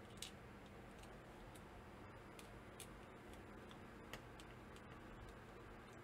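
Faint, irregular small clicks and taps from handling the switch-loaded board and small parts of a keyboard calculator kit, over a low room hiss. The sharpest click comes just after the start, and another stands out about four seconds in.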